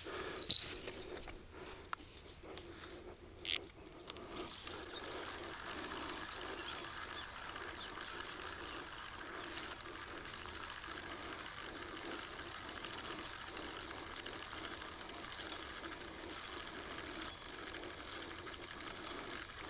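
A few knocks and handling sounds, then from about four seconds in a fishing reel being cranked steadily: an even, rhythmic mechanical whirr as the line is wound in.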